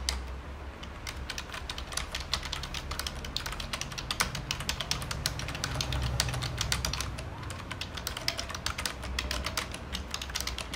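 Logitech K480 Bluetooth keyboard being typed on: a rapid, continuous patter of key clicks from its round, laptop-style chiclet keys, played as a demonstration of how the keys sound.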